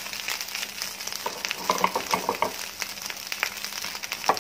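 Cooked rice frying in a pan over high heat, a steady sizzle with small crackling pops, as a wooden spatula stirs and scrapes it in a run of short strokes. There is a sharp knock near the end.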